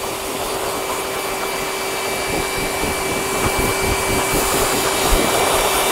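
Dog groomer's force dryer running, its electric fan motor driving a hard stream of air out of the hose into a puppy's coat: a steady rush of air with a constant motor tone, getting a little louder toward the end.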